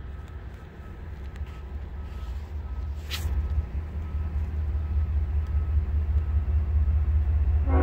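Low rumble of Norfolk Southern 8107's diesel locomotive and its oil train approaching, growing steadily louder, with a brief whoosh about three seconds in.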